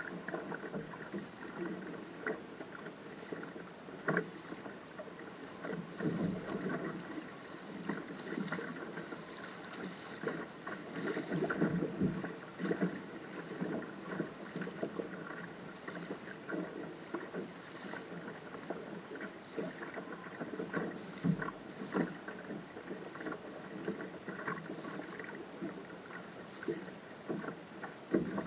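Choppy water slapping and splashing against the hull of a small sailing dinghy under way, with frequent short knocks from the hull and rigging. The splashing comes and goes with the waves and is busiest about a third of the way in.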